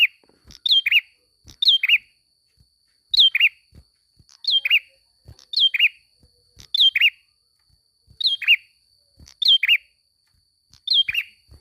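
Prinia (prenjak) calling over and over: each call is a short falling whistle followed at once by a lower note, repeated about ten times at roughly one call a second. A faint steady high-pitched tone runs underneath.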